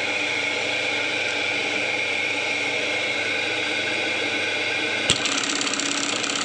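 Juki MB-372 industrial button-attaching machine running with a steady motor hum. About five seconds in, a sharp clack, then a fast, even run of ticks as the machine starts its button-sewing cycle.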